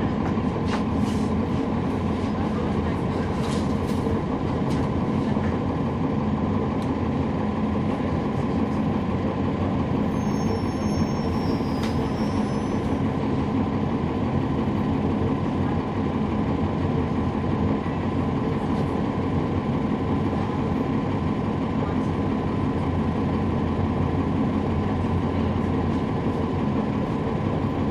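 Cummins ISL9 inline-six diesel of a NABI 40-ft transit bus, heard from on board, running at a steady pitch with a thin steady whine over it and a few light rattles near the start.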